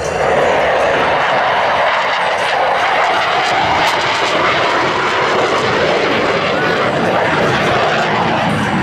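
McDonnell Douglas F/A-18C Hornet fighter jet flying a display pass, its twin engines in afterburner: loud, steady jet noise.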